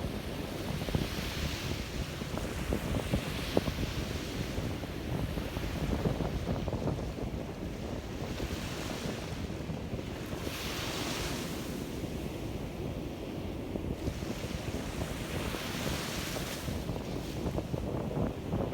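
Sea waves breaking and washing onto a beach, the rush swelling every few seconds, with wind rumbling on the microphone.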